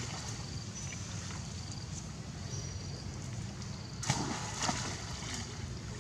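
Outdoor forest ambience with a steady low rumble and a few short, high chirps, then a brief burst of rustling branches and leaves about four seconds in as monkeys climb and jump through the tree.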